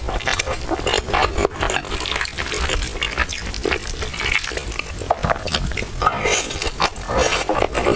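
Close-miked eating of milk tea with soft, chewy purple rice: a dense run of irregular wet clicks and smacks.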